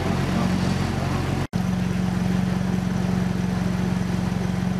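BMW X6 M's twin-turbo V8 idling steadily at the exhaust, a low even hum, with a brief break about a second and a half in.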